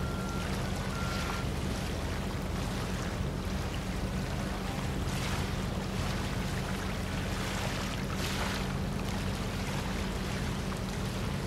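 Tugboat and ship diesel engines droning steadily across the water, a low hum under a hiss of wind and water that swells every few seconds. A faint thin high tone sounds briefly near the start.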